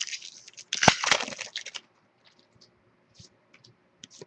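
Rustling and crinkling of a trading-card pack being handled and opened, with a sharp click about a second in, for the first two seconds, then a few faint clicks from cards being handled.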